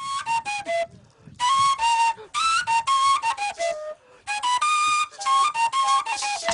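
Background music: a flute-like wind instrument playing a melody of quick notes in short, mostly descending phrases, with brief pauses about a second in and about four seconds in.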